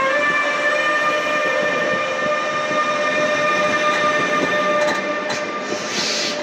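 ÖBB Railjet's Siemens Taurus electric locomotive pulling out, its traction converter whining in steady musical tones over the rumble of wheels on rail. A brief hiss comes near the end.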